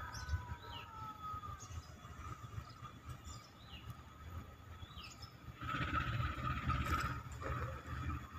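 Diesel locomotive of a departing KA Parcel train rumbling low in the distance, with birds chirping every second or so. About six seconds in, a rushing noise swells for a second and a half.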